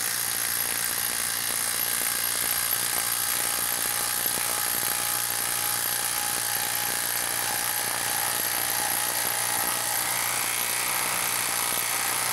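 Hilti brushless cordless impact driver hammering steadily as it drives a 6-inch hex-head lag screw, via a socket, into a wood log round.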